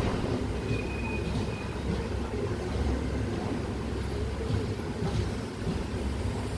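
Passenger train of LHB coaches rolling past a platform: a steady low rumble of wheels on rails, with a brief high squeal about a second in.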